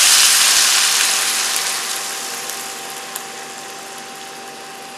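Chicken and onions sizzling loudly in a hot frying pan. The sizzle dies away over about three seconds as the added coconut cream cools the pan, leaving a faint steady hum.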